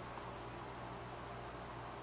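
Steady background hiss with a faint low hum underneath and no distinct event: room tone.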